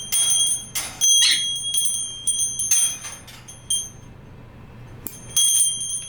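Metal parts and magnets of a magnetic fidget slider clicking and snapping together, each click leaving a high metallic ring. A few separate clicks, with a louder cluster about a second in and again near the end.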